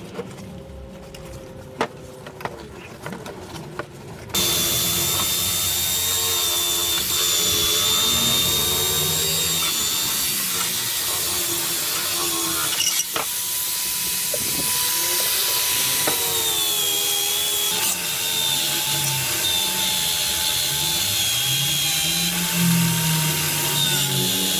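A power tool running, with a held whine that wavers slowly in pitch as its speed changes under load; it starts abruptly about four seconds in, after a quieter stretch with a few clicks.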